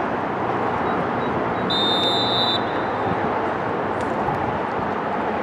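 A referee's whistle blown once, a short clear tone of just under a second about two seconds in, over steady outdoor background noise.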